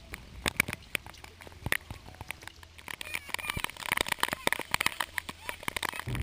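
Kayak paddling through floodwater: irregular sharp knocks and splashes from the paddle, getting busier and louder about halfway through.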